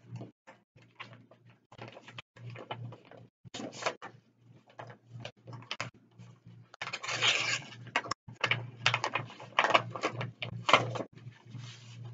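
Paper rustling and crinkling as a bid envelope is opened and its pages handled on a desk. The rustles come in irregular bursts, heaviest in the second half, over a low steady hum.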